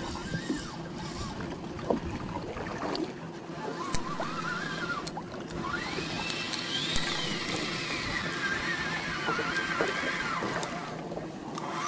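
Outboard boat engines running steadily, with water sloshing against the hull and a few light clicks. A whine rises and falls several times over this, the longest stretch in the second half.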